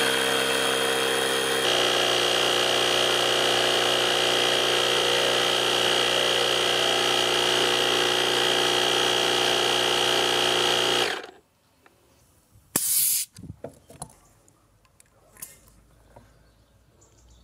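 Parkside PKA 20-Li A1 20 V cordless compressor running steadily under load as it inflates a car tyre: an even mechanical hum with a high tone over it. It cuts off suddenly about 11 seconds in, when it reaches the set 3 bar. A short hiss follows about two seconds later.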